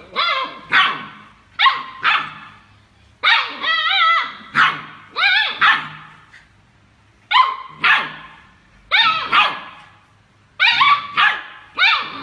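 Dog barking repeatedly in short runs of two or three barks with pauses between, including one longer, wavering bark about four seconds in.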